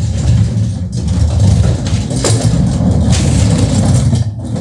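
A loud, steady low rumble of machine noise, with a few short knocks.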